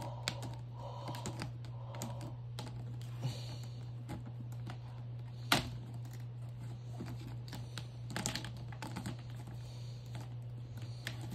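Plastic fan parts being handled and fitted, likely the front grille going onto the rebuilt fan: a run of light clicks and rattles with one sharp knock about five and a half seconds in, over a steady low hum.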